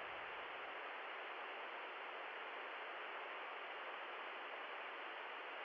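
A steady, even hiss that holds at one level throughout.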